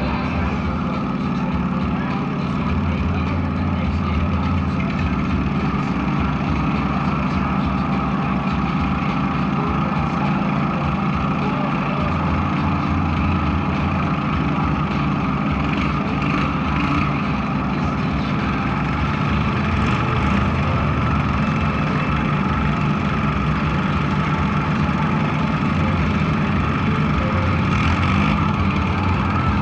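Lawn mower engines running steadily, with a low droning hum.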